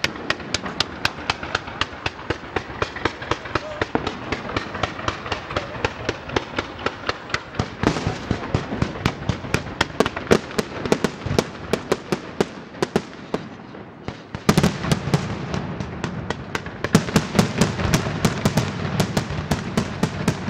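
Pirotecnia Martí fireworks display: a rapid, continuous run of sharp bangs and crackles, several a second, from fountains, comets and bursting shells. The firing eases briefly about two-thirds of the way through, then comes back denser, with a heavier rumble under the bangs.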